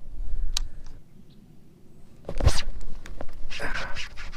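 A sudden splash about two and a half seconds in as a bass strikes a topwater toad lure, followed by more splashing and a run of clicks while the hooked fish is fought.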